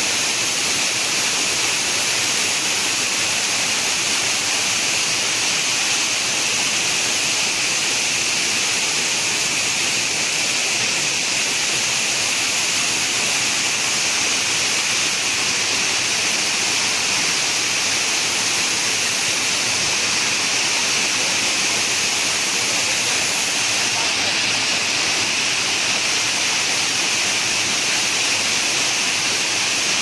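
Steady rush of a broad, many-tiered waterfall cascading over limestone terraces, an even, unbroken roar of water.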